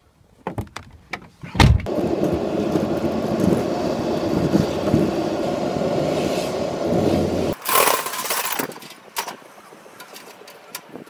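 A car door shut with a thump, then a car driving along: steady engine and road noise for several seconds. It cuts off suddenly to a short jangle of keys and a few clicks at a roller shutter's lock.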